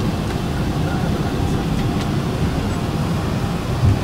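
Steady low rumble of an airliner cabin's air system, with a soft bump just before the end.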